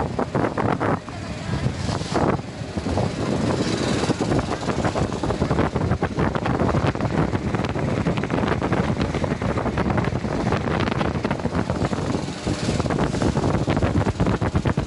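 Wind buffeting the microphone over the steady running of a small wooden motorboat's engine, heard from on board.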